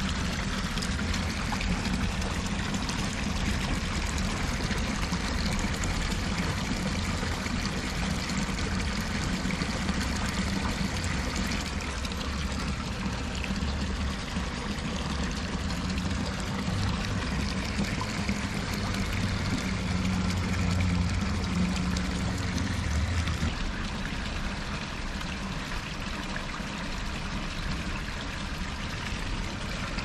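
Spring water running and splashing in a steady rush, with a low rumble underneath that swells for a few seconds past the middle.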